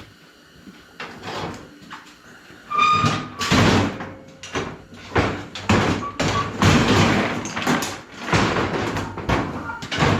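Shop cart and gear being shoved and dragged across a shop floor: a short squeak about three seconds in, then a run of about eight loud, irregular scrapes and knocks.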